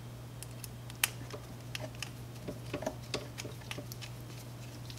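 Irregular small clicks and ticks of a hex screwdriver turning a screw into the aluminium print-head block of a 3D printer, the sharpest click about a second in, over a low steady hum.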